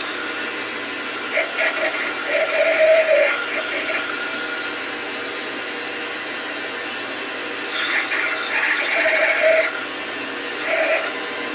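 Metal lathe running steadily while a metal bar turns in it, with three spells of louder, rough scraping noise as the bar is worked: the longest shortly after the start, another past the middle, a short one near the end.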